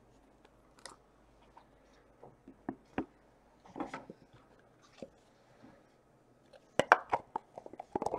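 Thick trading cards being handled: shuffled, flipped and set down, giving scattered light clicks and taps that come faster and louder near the end.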